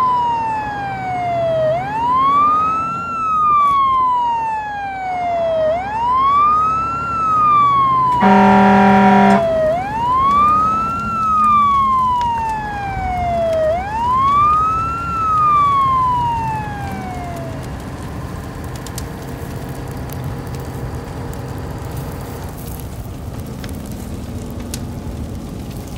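Fire-truck siren wailing, each cycle climbing quickly in pitch and falling slowly, about every four seconds, with one loud horn blast lasting about a second roughly a third of the way in. The siren stops a little over two-thirds through, leaving a steady hiss and crackle of burning cardboard.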